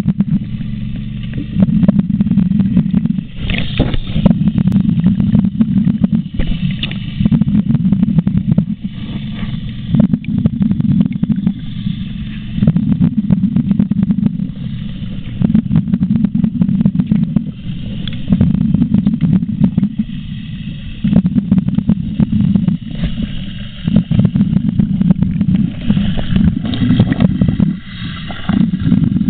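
Underwater sound of a gold suction dredge at work: a steady low rumble of the dredge's engine and suction carried through the water. It swells louder every two to three seconds, with hissing bursts of the diver's exhaled bubbles from the hookah air line.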